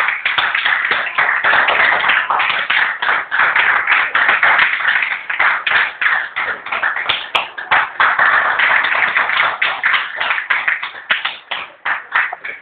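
Audience applauding: dense, irregular clapping that dies away near the end.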